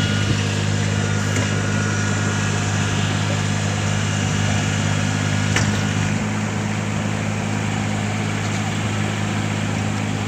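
Kubota DC-35 combine harvester's diesel engine running at a steady speed, with one sharp click a little past halfway.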